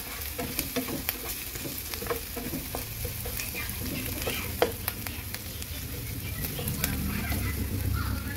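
Chopped red onion and garlic sizzling in oil in a nonstick frying pan as the garlic is browned, with a spatula stirring them and scraping and tapping the pan in many small clicks. One sharper tap comes about four and a half seconds in.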